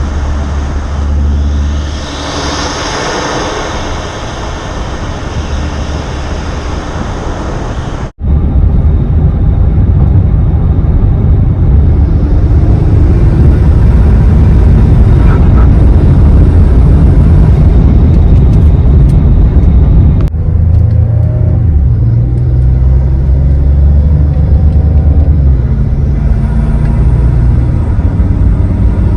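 Ford 2.7 EcoBoost twin-turbo V6 in an F-150 under way, with turbo spool and intake air noise through an Injen cold air intake swelling briefly a couple of seconds in. The sound breaks off abruptly about 8 s and 20 s in, and after the first break a heavier, louder engine and road rumble runs on.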